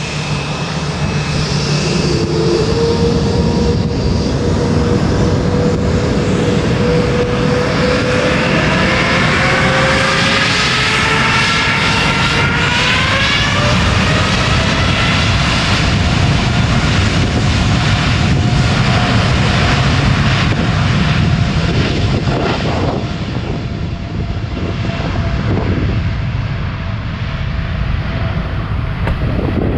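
Boeing 787-9 jet engines at takeoff power, a loud, steady roar with whining tones that rise in pitch about a third of the way in and then hold steady.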